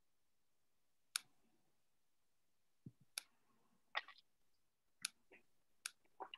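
Near silence broken by about four faint, sharp clicks at irregular intervals, with a few softer knocks between them.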